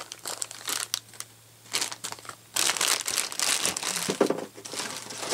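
Packaging crinkling and rustling in irregular bursts as it is handled, loudest in a long stretch about halfway through.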